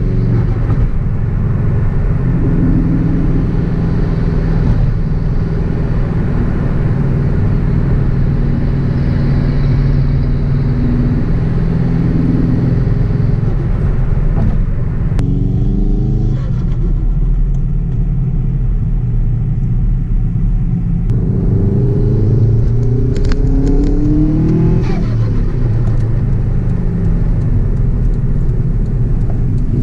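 Subaru Impreza WRX wagon's turbocharged EJ207 flat-four running through a 3-inch exhaust. It is steady for the first half. About fifteen seconds in, the pitch rises, and it rises again several times after about twenty-two seconds.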